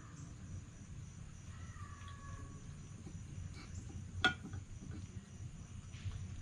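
Red fox eating from a bowl, its chewing and crunching near the microphone, with one sharp crunch about four seconds in. Behind it runs a steady high insect drone.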